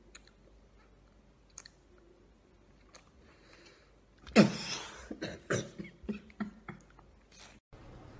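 A woman biting into a sour lemon: faint mouth clicks, then about four seconds in a loud cry that falls in pitch, followed by a string of short breathy vocal bursts as she reacts to the sourness.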